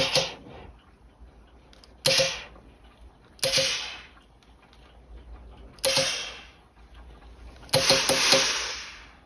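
Steam iron shooting bursts of steam onto cloth while pressing a seam allowance over: five sudden hisses, each fading within about a second, the last one longer with several quick pulses.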